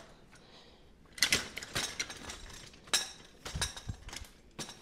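Graco Pack 'n Play playard frame clicking and clattering as its top rails are pulled up and popped into their locks: a handful of sharp, scattered clicks and knocks.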